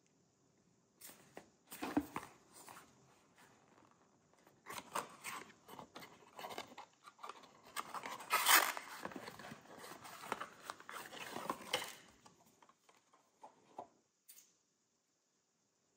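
A small cardboard candle box is handled and opened by hand: paper rustles, scrapes and light taps as its top flap is pulled open and the candle jar is slid out. The sounds are loudest about eight and a half seconds in and stop about a second and a half before the end.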